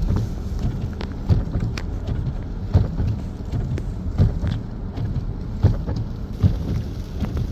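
Freezing rain and wind outdoors in a winter storm: a steady low rumble of wind on the microphone, with irregular sharp taps of ice pellets striking nearby surfaces.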